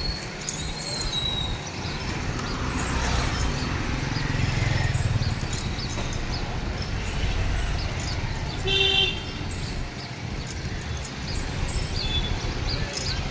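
Road traffic running steadily, with birds chirping and a short vehicle horn toot about nine seconds in.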